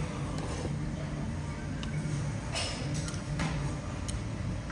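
Curry soba noodles slurped twice, short noisy swishes about halfway through, with a few light clicks, over a steady low hum.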